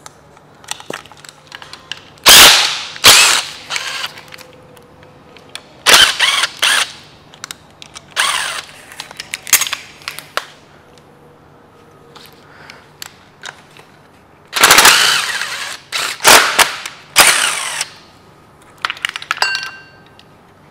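Cordless impact driver hammering in about ten short bursts as it runs bolts out of engine brackets, with light clicks and clatter of parts in between.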